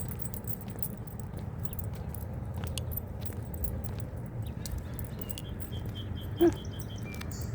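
Light metal jingling on the walk, over a steady low rumble of wind and handling noise. About six and a half seconds in there is one short, loud call, just after a quick run of high chirps.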